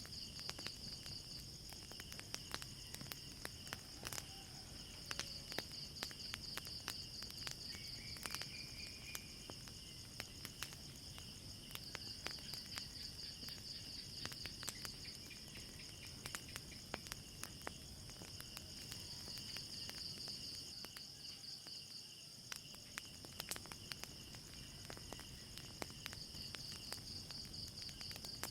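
Crickets trilling steadily in pulsing waves, with the sharp pops and crackles of a wood fire scattered throughout.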